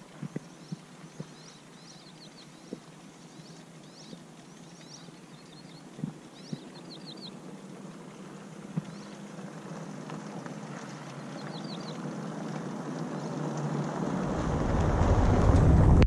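Small birds chirp in quick runs of three or four notes, with a few light clicks early on. Over the second half, wind rises into a rushing gust that grows steadily louder and buffets the microphone with a low rumble near the end.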